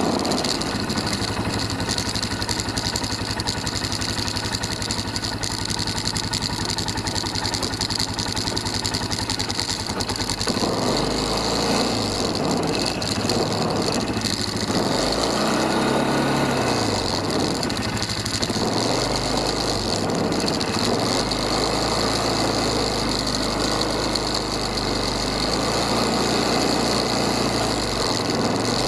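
ATV (quad) engine running steadily as the quad rides along a snow-covered track. The engine sound gets fuller from about ten seconds in.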